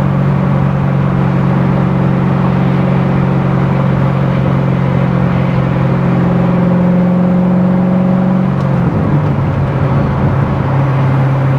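C6 Corvette Z06's LS7 V8 engine running steadily at cruise, its note creeping slightly higher. About nine seconds in, the note drops to a lower, steady pitch.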